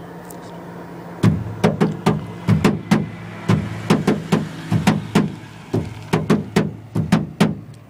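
A hip-hop beat kicks in about a second in: quick, evenly repeating drum-like hits with a heavy low end, over a steady low hum.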